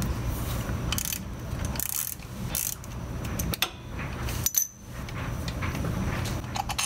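A hand tool turning out a screw from a motorcycle's oil filter cover: a few scattered metallic clicks and scrapes over a steady low hum.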